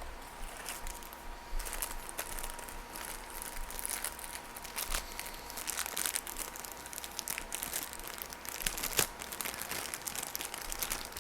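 Crinkling and tearing of a Funko Mystery Minis blind-box package being opened by hand: irregular crackles throughout, with a sharper snap about nine seconds in.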